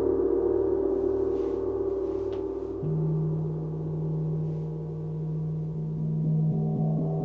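Overlapping ringing of sound-bath instruments: a tone already sounding carries on, then about three seconds in a quartz crystal singing bowl is struck with a mallet and sings a low steady tone. Near the end a flat gong is struck with a mallet, adding further ringing tones over the bowl.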